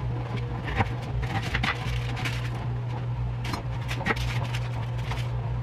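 Kitchen handling sounds: a few light knocks and clicks over a steady low hum.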